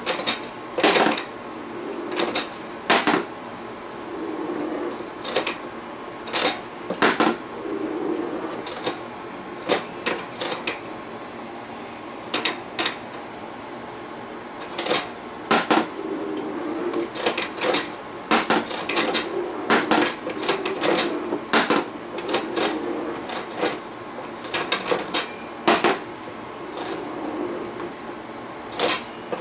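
Congost Fuego Antiaéreo tabletop anti-aircraft game being played: irregular sharp clicks and clacks as its gun fires small balls and they strike and bounce, with short rolling rumbles of balls running across the board, over a faint steady hum.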